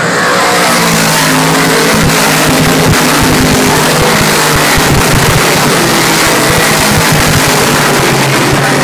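A pack of big-block dirt modified race cars at racing speed, their big-block V8 engines very loud and continuous as the field races by.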